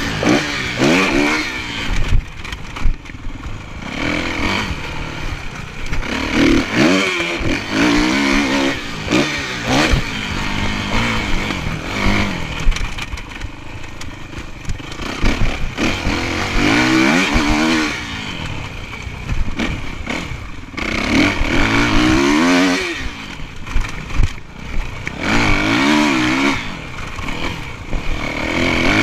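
Dirt bike engine being ridden around a motocross track, revving up in pitch under throttle and dropping back off, over and over every few seconds, with knocks and rattles from the bike over rough ground.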